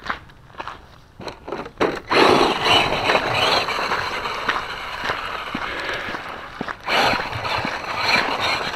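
Traxxas Slash RC short-course truck running over dirt and gravel, its tyres scraping and crunching; the noise starts loud about two seconds in, breaks off briefly near seven seconds, then picks up again.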